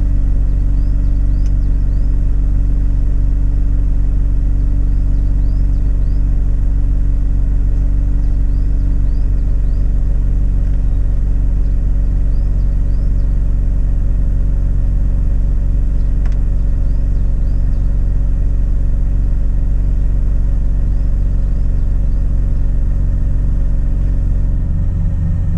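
Mazda RX-8's twin-rotor Wankel engine idling steadily, its note shifting about a second before the end. The engine misfires at low rpm, a fault later traced to wrongly wired injectors.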